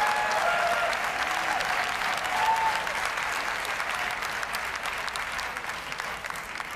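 Arena audience applauding, with a few voices calling out in the first second and again midway; the clapping gradually dies down.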